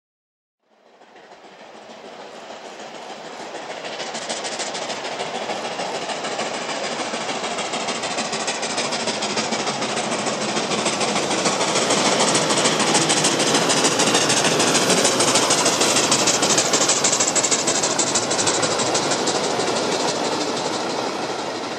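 Steam locomotive hauling a passenger train, its rapid exhaust beats growing steadily louder as it approaches and passes, followed by the carriages rolling over the rails.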